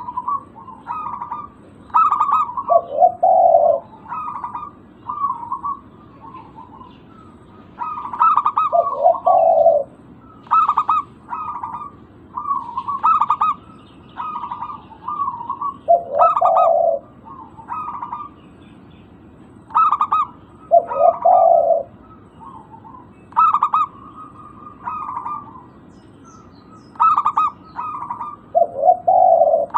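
Zebra dove (perkutut) cooing: quick series of clipped, purring coo notes, broken about every six seconds by a lower, longer coo.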